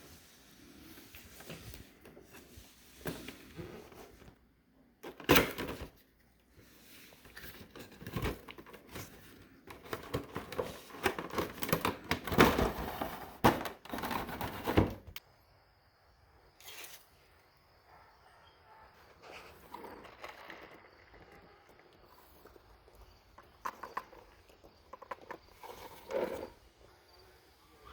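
Irregular handling noises: knocks, clatter and rustling. They come in a short burst about five seconds in and a busier stretch from about ten to fifteen seconds, then thin out to scattered clicks.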